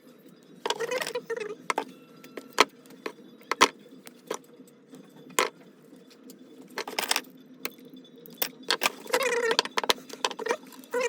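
Hands working on small parts and tools at a repair bench: sharp clicks and taps, and three short rattling, scraping bursts of a second or less each.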